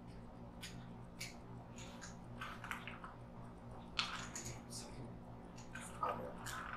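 Utility knife cutting at a plastic soda bottle with chocolate set inside it: faint, irregular scrapes and clicks of the blade.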